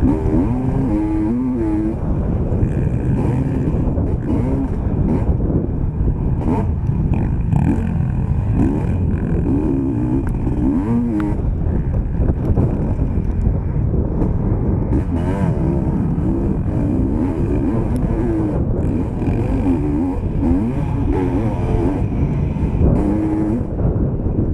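Motocross bike engine racing on a dirt track, close to the microphone, its pitch rising and falling over and over as the rider opens and closes the throttle and shifts gears.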